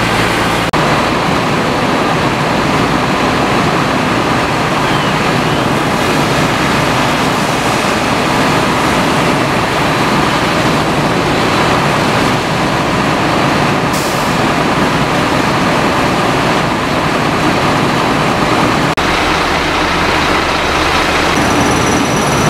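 Fire apparatus diesel engines running steadily to drive their pumps, mixed with the rush of water from hose streams.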